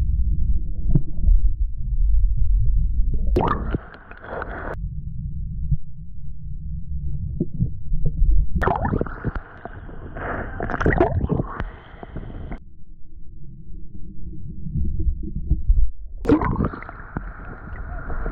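Small waves washing over a GoPro Hero 10's built-in microphone in shallow water. While the camera is under water it picks up a muffled low rumble. Three times, as the camera surfaces, a brighter splashing wash breaks in: briefly about three and a half seconds in, for several seconds around nine to twelve seconds, and again near the end.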